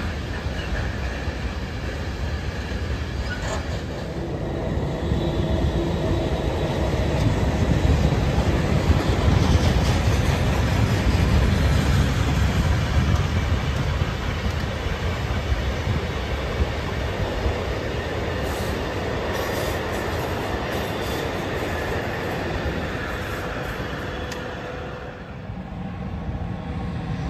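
Railway train running on the track, a steady noise that grows louder from about four seconds in, peaks around ten seconds, then eases off, with a short dip near the end.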